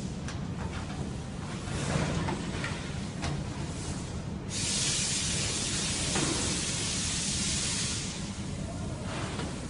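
Light metallic clicks and knocks from a steel filing-cabinet drawer being fitted onto its slides. About halfway through, a steady hiss starts abruptly and runs for about three seconds before the clicking resumes.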